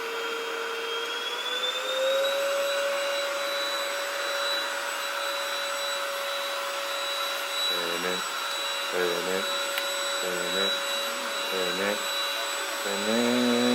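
Cordless stick vacuum cleaner running: its motor whine rises in pitch over the first two seconds as it spins up, then holds steady with a high whistle and a rush of airflow. From about eight seconds in, a person's voice comes over it in short phrases.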